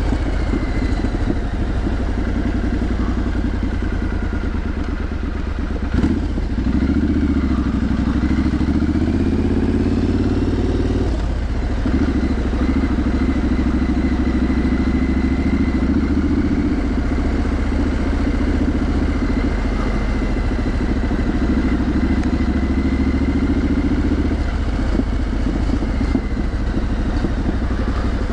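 Triumph Street Scrambler's 900 cc parallel-twin engine and exhaust running at low road speed, with a sharp knock about six seconds in. The engine note rises as the bike accelerates, eases off around eleven seconds in, then holds steady before easing again near the end.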